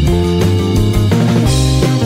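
Background music: guitar over bass and drums with a steady beat.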